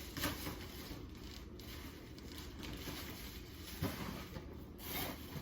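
Gift packaging rustling and crinkling as a present is unwrapped, in a few short bursts over a low room background.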